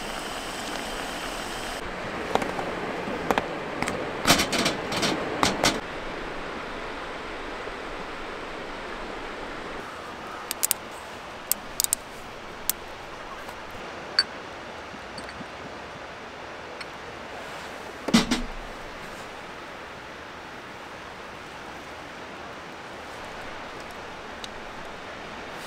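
Steady hiss of a camp gas stove under a simmering pan of stew. Over it come a cluster of sharp metal clicks and clinks of cooking gear and a bottle being handled, a few scattered clicks, and one louder knock past the middle.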